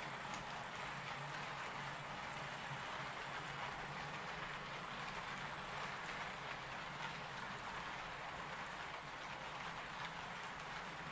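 HO-scale Roco electric locomotive and passenger coaches running on track: a steady whir of the small motor and wheels rolling over the rails.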